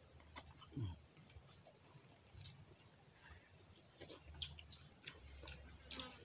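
Faint eating sounds from several people eating fish by hand: scattered small clicks and smacks of lips, chewing and fingers picking at food, with a short murmured 'mm' about a second in.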